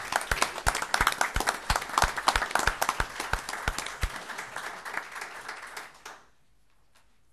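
A small group applauding in a meeting room, with a few loud claps close to the microphone. The applause stops abruptly about six seconds in.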